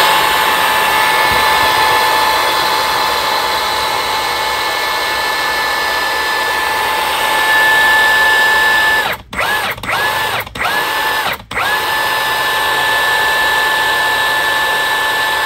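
Milwaukee M18 one-inch cordless impact wrench running with the trigger held, a steady high motor whine. About two-thirds of the way through it is let off and spun up again in several quick blips, then runs on steadily.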